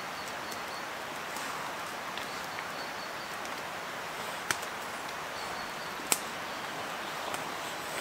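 Small campfire of dry sticks burning with a steady crackle, and two sharp pops a little past halfway.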